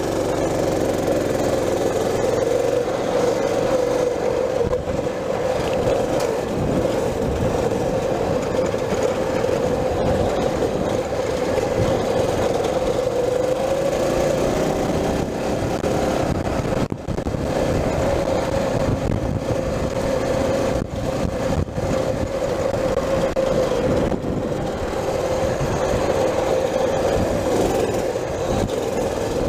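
Mini bike's small engine running steadily under throttle while riding along a dirt trail, its note holding an even pitch. It dips briefly a couple of times past the middle.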